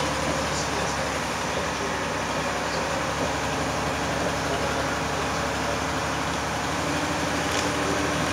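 Steady engine hum and road noise heard from inside the cabin of a moving road vehicle.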